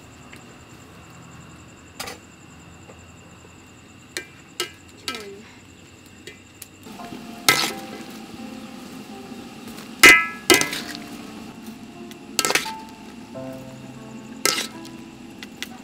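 A metal cooking utensil knocking and clinking against a metal wok, about ten separate clinks, the loudest about ten seconds in with a brief ring. Soft background music comes in about seven seconds in.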